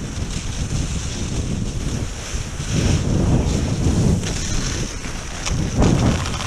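Wind buffeting the action camera's microphone: a steady low rumble with a thin hiss above it.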